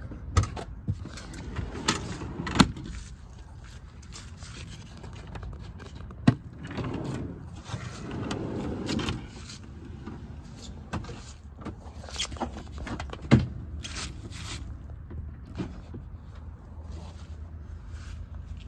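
Wooden drawers sliding and knocking, with tools and plastic cases being handled: several sharp knocks and clatters among stretches of rubbing and sliding, over a low steady background hum.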